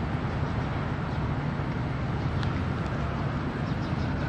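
Steady low rumble of a tour bus engine running.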